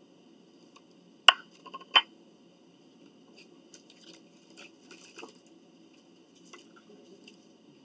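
Two sharp knocks about a second in, then soft, scattered crunching and chewing close to the microphone as salad is eaten.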